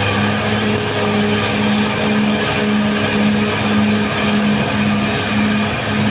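Caterpillar D6R XL bulldozer's diesel engine running steadily under load, with a low note that pulses about twice a second.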